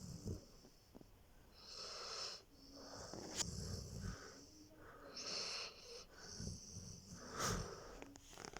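Saint Bernard dog snoring in its sleep: slow breaths a few seconds apart, each a wheezy hiss followed by a low rumbling snore.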